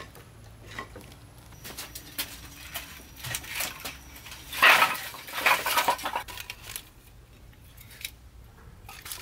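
Clattering, clinking and knocking of hard objects being handled: scattered clicks, a busier run of clatter in the middle, then a few more knocks near the end.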